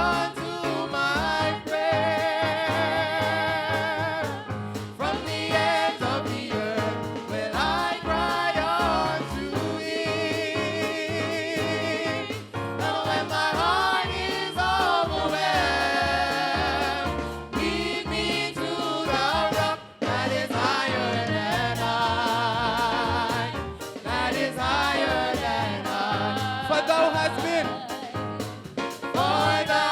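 A praise team singing a gospel song in harmony, with vibrato in the voices, over a stepping bass accompaniment.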